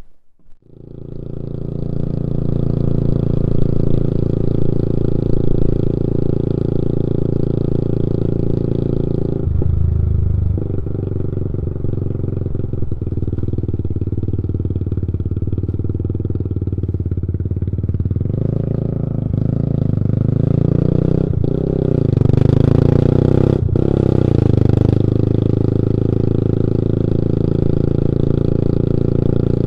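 Motorcycle engine running steadily as the bike rides along. The engine note changes briefly about a third of the way in, and grows louder and higher with a short break in the last third.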